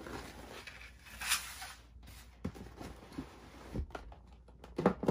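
Cardboard gift box and its ribbon being handled as the box is opened: a brief rustle of ribbon and paperboard about a second in, then a few light taps and knocks of the box, the sharpest one near the end.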